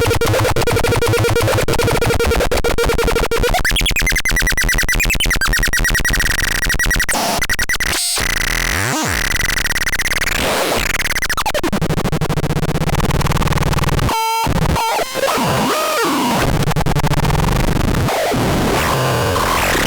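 Harsh electronic noise from the MARADAPAX C 3066: buzzy held tones that jump to new pitches every few seconds, with static hiss, a few sliding pitch sweeps and brief sudden cut-outs.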